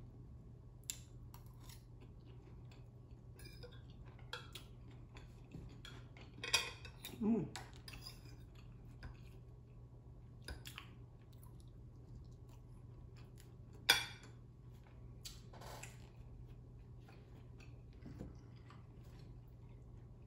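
Cutlery clicking and scraping against a dish while eating: a scattered series of light clicks, with a sharper clink about fourteen seconds in.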